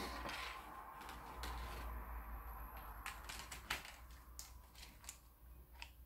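A reflective foil bird-repeller pinwheel being handled and assembled: a brief rustle of its holographic foil petals, then a scatter of light clicks and taps from its plastic parts.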